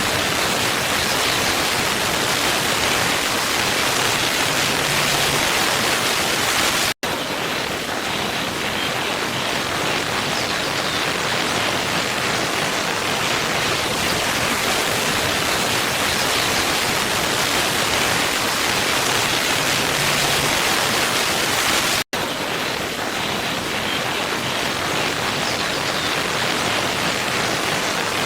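Waterfall rushing: a steady, even rush of falling water. It cuts out for an instant twice, about fifteen seconds apart, where the same stretch of recording repeats.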